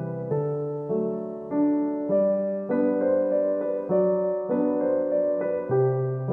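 Background music on a piano-like keyboard, with new notes or chords struck about every half second and each one fading away.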